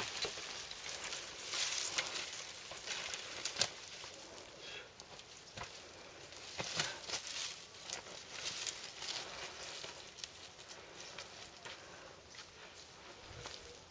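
Dry brush and twigs crackling and rustling, with footsteps scuffing on dry ground, as a hiker pushes up through scrub. Irregular snaps and scrapes, busier in the first half and thinning out toward the end.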